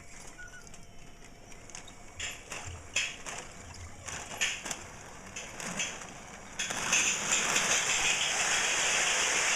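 Clicks and knocks of a stalled Lionel O27 toy steam locomotive being handled on its track. About two-thirds of the way in, a steady rushing, rattling noise starts and carries on as the train runs again.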